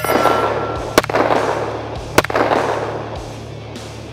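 10mm semi-automatic pistol fired three times about a second apart, each shot trailed by a long echo.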